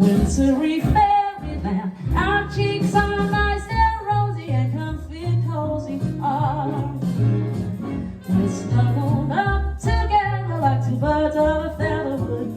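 A song sung by a woman over instrumental backing, with a bass line stepping from note to note under a melody held with vibrato.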